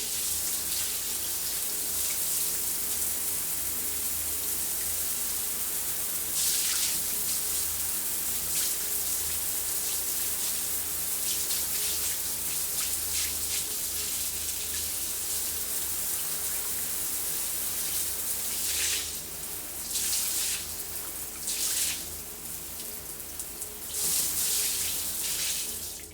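Shower spray running steadily, a full hiss of water falling onto a surface, with a few louder surges in the splashing near the end. It cuts off suddenly at the very end.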